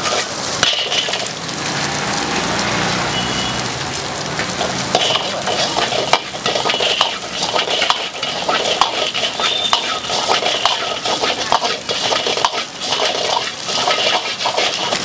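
Steel ladle scraping and clinking against a wok as egg is stir-fried over a gas flame, with frying sizzle underneath. Frequent short metallic clicks with a few brief ringing tones.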